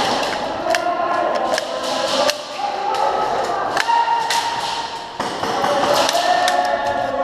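Airsoft guns firing in irregular sharp cracks, with BB hits, in an indoor arena. Steady held tones sound in the background, changing pitch every second or so.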